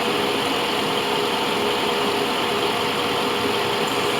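2001 Mercedes S55 AMG's V8 idling with the air conditioning running on full, heard at the open engine bay: a steady, even noise with a faint constant hum.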